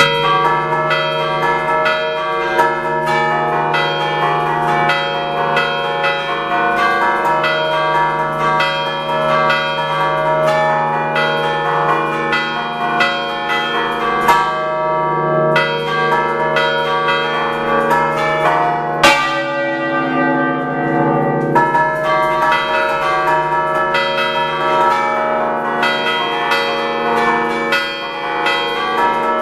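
A concerto of six church bells tuned in D, five cast by Picasso of Recco in 1905 and one by Enrico Picasso in 1977, rung by hand from inside the belfry in the Ligurian 'a ducale' style. Quick clapper strikes follow one another in a continuous melodic pattern, the bells ringing on over each other, with one harder stroke about two-thirds of the way through.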